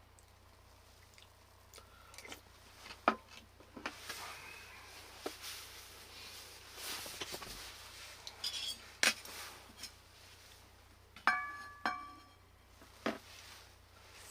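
Dishes and utensils being handled: scattered taps, knocks and clatter, with two bright ringing clinks close together about three-quarters of the way through.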